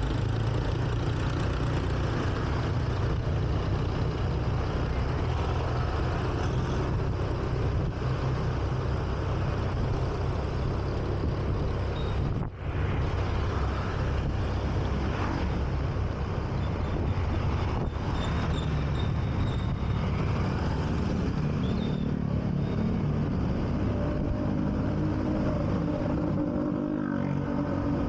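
Honda Beat scooter's single-cylinder engine running under way through town traffic, with road noise and other motorbikes and cars close by. In the last third an engine note comes up clearly and climbs in pitch as the scooter speeds up.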